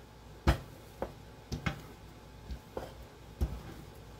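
Rolling pin knocking and clacking against the countertop as biscuit dough is rolled out, about seven short, uneven knocks.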